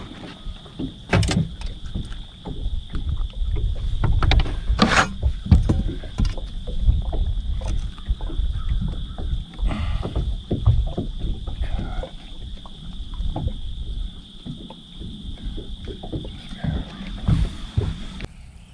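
Gusty wind rumbling on the microphone and water slapping against a bass boat's hull, with scattered knocks and clunks as the angler moves about handling gear on the deck. A steady high-pitched whine runs underneath and cuts off near the end.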